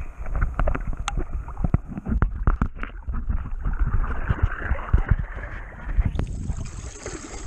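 Wind rumbling on the microphone over moving water, with many short knocks and splashes, as from paddling or handling on a raft or canoe; a hissing rush builds toward the end.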